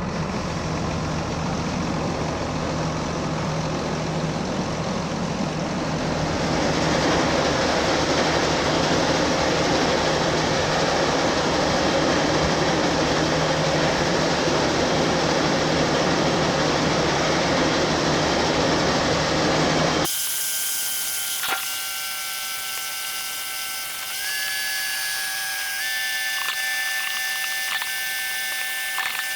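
Large diesel farm machinery running steadily, joined about six seconds in by a louder even rushing noise. About two-thirds of the way through it gives way abruptly to a quieter steady high whine with a few clicks.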